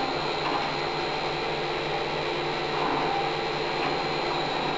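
Steady mechanical whirring of a CNC-converted Acra 9x42 milling machine running, with a constant high whine over it.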